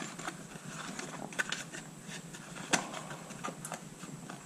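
A small cardboard parts box being handled and turned over, giving a few sharp knocks and clicks, the loudest a little under three seconds in.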